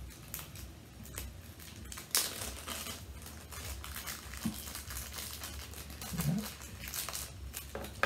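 Gift wrapping and packaging crinkling and rustling in short irregular crackles as presents are unwrapped and handled.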